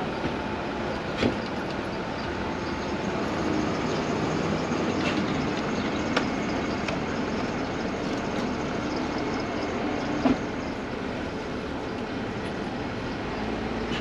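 Steady outdoor rumble of vehicles around a busy parking lot, with a few sharp knocks, the loudest about a second in and about ten seconds in.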